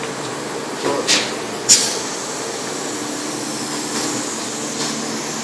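Compressed-air paint spray gun hissing steadily as paint is sprayed, with two short louder bursts of hiss in the first two seconds.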